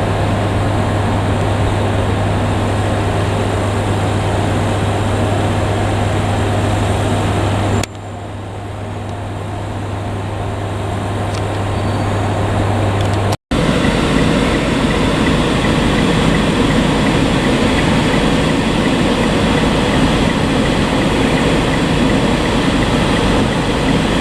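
KiHa 200 diesel railcar running, a steady low engine hum that drops off abruptly about eight seconds in and then builds again. After a brief dropout a little past halfway, the louder, rougher rumble of the train takes over.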